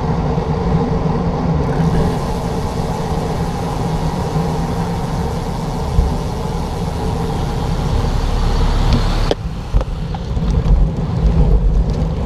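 Motor traffic close by: car engines running steadily, heard from a moving bicycle. In the last few seconds the sound turns to low, gusty wind buffeting on the microphone.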